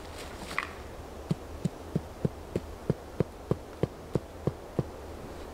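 A wooden stake being hammered into the ground to peg down a tarp corner: about a dozen short, low knocks, evenly spaced at about three a second, that stop a little before the end.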